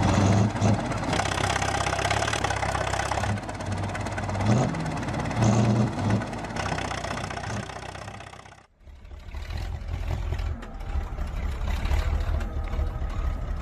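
Tractor engines running during a mud recovery, the pitch rising and falling a few times. About nine seconds in the sound cuts out briefly and a deeper engine rumble takes over.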